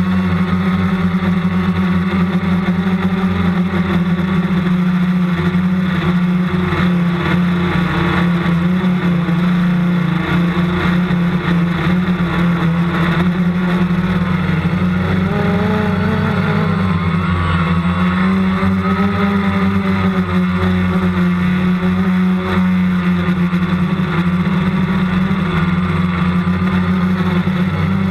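Steady drone of a small radio-controlled aircraft's motor and propeller, heard from the camera it carries, its pitch wavering slightly now and then.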